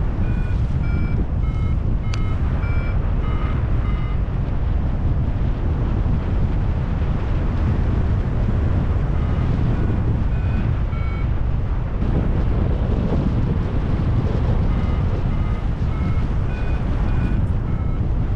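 Paraglider variometer beeping in short tones that change in pitch, the audio climb signal that the glider is rising in lift. The beeps come in bursts with a few seconds' pause in the middle, over heavy wind rush on the microphone in flight.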